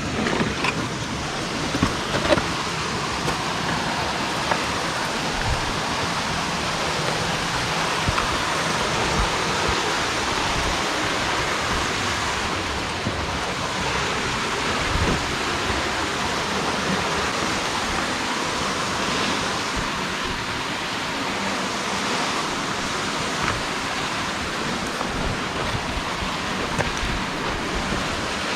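Steady rush of flowing creek water, with a few sharp knocks about two seconds in.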